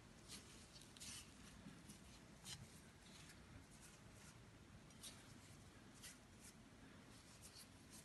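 Faint, irregular rustling and crackling of plastic-gloved hands pressing and spreading shredded kunafa (kataifi) dough in a round pan.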